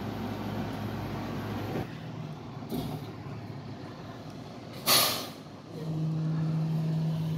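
International trash truck's diesel engine running. About five seconds in, a sharp hiss of air brakes venting dies away quickly, and then the engine settles into a steady, higher-pitched hum.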